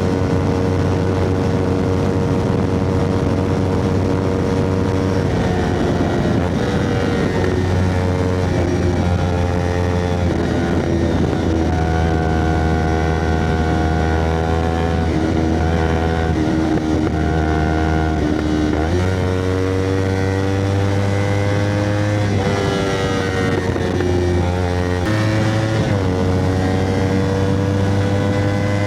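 Kawasaki Ninja 250R's parallel-twin engine running through an Akrapovic carbon exhaust. The engine speed holds steady for stretches, then climbs and drops several times, with changes about five seconds in, around ten seconds, around nineteen seconds and between twenty-two and twenty-six seconds.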